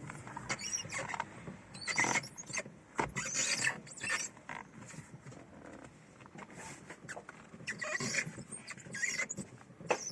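Chevrolet Lacetti steering wheel creaking and squeaking in repeated bursts as it is turned. The owner traces the noise to a worn steering shaft and its universal joint (cross).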